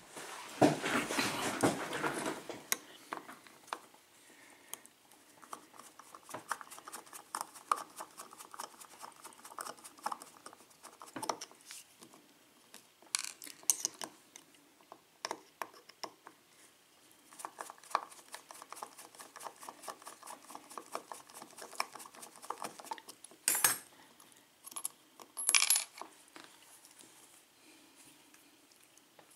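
Small metal clicks, taps and clinks of a pin-tumbler lock cylinder being worked on with a small screwdriver to free the plug. There is a louder rattle in the first couple of seconds and two sharper metallic snaps near the end.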